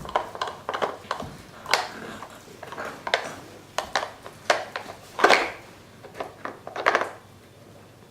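Hard plastic pieces of a Dog Smart treat-puzzle toy clattering and knocking irregularly as a cat paws at the hollow bones and lifts them to get at the treats. The knocks stop about seven seconds in.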